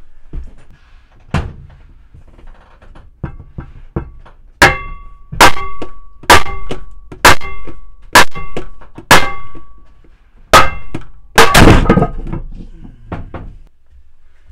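Hammer taps knocking the steel clutch hub assembly of an LG Waveforce washer loose from the tub: a light knock, then about eight sharp metallic strikes roughly a second apart, each ringing briefly. Near the end a longer rattling clatter comes as the hub breaks free.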